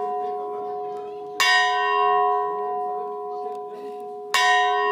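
A bell tolling at a slow, even pace: two strokes about three seconds apart, each ringing on long after it is struck.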